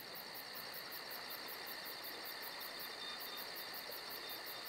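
Cricket-like insect chirping: a steady high trill with a fast, even pulse of about five beats a second.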